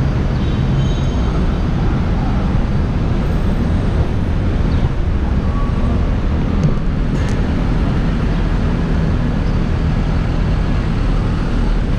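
Steady city street traffic with a heavy low rumble as cars, a van and a box truck drive past.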